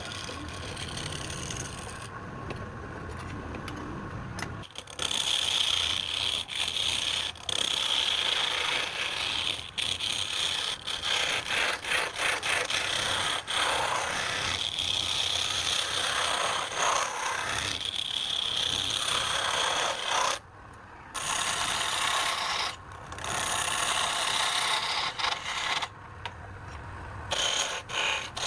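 Woodturning tool scraping against spinning wood on a lathe: a steady lower running noise for about five seconds, then a louder, continuous scraping hiss broken by a few brief gaps.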